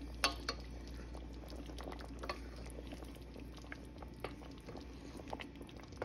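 Chicken afritada stew in thick tomato sauce simmering in a stainless steel pot, its bubbles popping irregularly, while a wooden spatula stirs through it, with one sharper click about a quarter second in.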